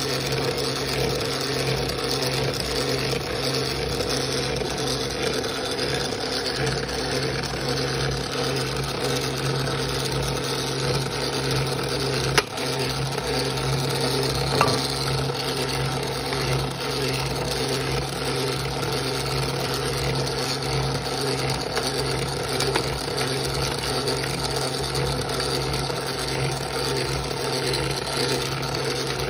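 3D-printed GM LS3 model engine turned over by its small PWM-controlled electric motor, the plastic crank, pistons and valve train running with a steady mechanical whir. A single sharp click about twelve seconds in.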